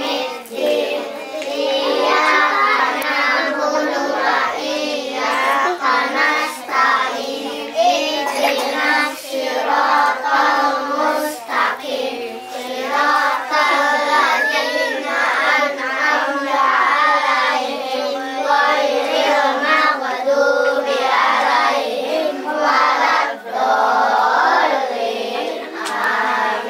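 A group of children singing together, many young voices at once.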